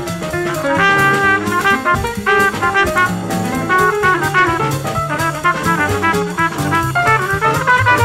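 Small-group jazz recording: a brass horn plays a quick melodic line over a walking bass and a drum kit keeping time on the cymbals.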